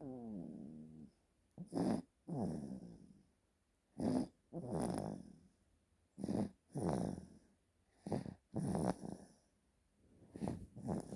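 Baby snoring loudly in a steady rhythm, a breath about every two and a half seconds. Each breath is a short loud burst followed by a longer sound that falls in pitch.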